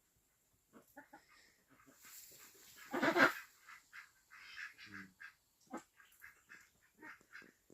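A domestic mother duck and her duckling calling: a run of short, high peeps, with a louder call from the adult about three seconds in and a lower quack near five seconds.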